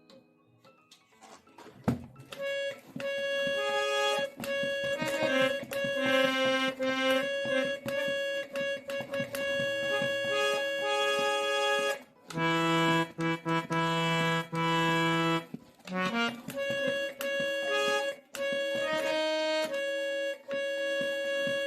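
Harmonium reeds sounding held notes and chords under steady bellows air, played to test for a buzzing reed. The notes start about two seconds in with a click, pause briefly three times, and include a low held chord in the middle.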